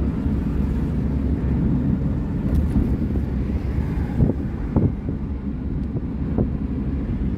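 Car cabin noise while driving: a steady low road and engine rumble with wind buffeting from an open window. A few brief knocks come about four to six seconds in.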